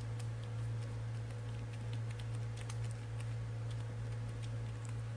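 Typing on a computer keyboard: faint, uneven keystrokes over a steady low electrical hum.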